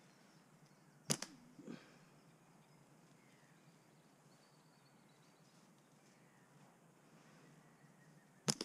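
Two sharp snaps of a catapult (slingshot) being fired up into the treetops, about seven seconds apart. Each snap is followed about half a second later by a softer knock, the shot striking in the branches.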